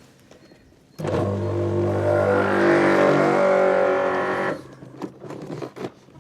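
A pressure washer starts suddenly about a second in, runs steadily for about three and a half seconds, then cuts off. Scattered clicks and knocks follow.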